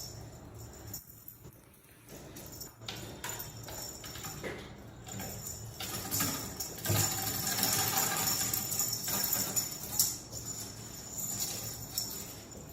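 Small bells jingling and rattling irregularly, as a belled cat toy is batted about.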